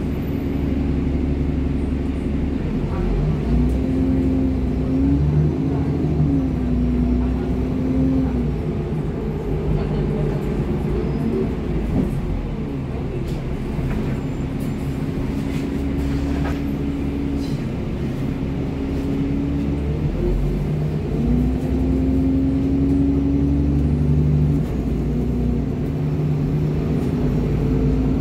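Interior of an Alexander Dennis Enviro 400 double-decker bus on the move: a steady low engine rumble with a drivetrain whine that rises and falls several times as the bus speeds up and slows.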